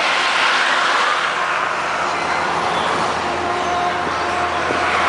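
Scania R 420 truck's diesel engine running steadily at highway speed, heard from the cab with loud wind and tyre noise and a faint steady hum.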